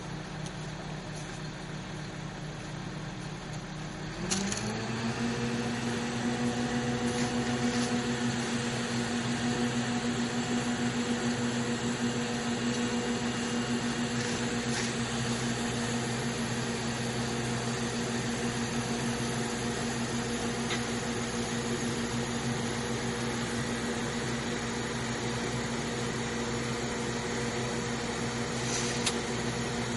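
Mobile crane's engine running steadily, then revving up quickly about four seconds in and holding at the higher speed while it hoists and swings a pre-cast concrete wall panel.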